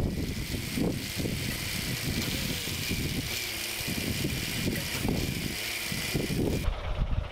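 Caterpillar 1693 inline-six diesel in a 1977 Peterbilt 359 running as the truck creeps forward, a steady low, pulsing engine note. A hiss over it stops suddenly near the end.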